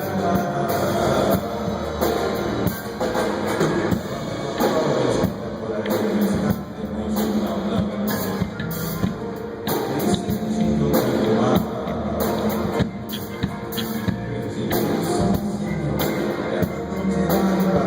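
A band playing pop-rock music, with drum kit and guitar carrying a steady beat.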